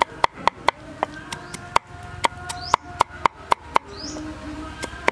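Steel cleaver mincing garlic on a wooden chopping block: quick rhythmic chops, about four a second, that stop about four seconds in.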